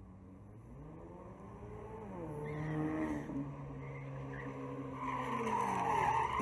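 A Ford Mustang's engine revving hard as the car accelerates away, rising in pitch and then holding steady. Near the end its tyres squeal as the rear slides out.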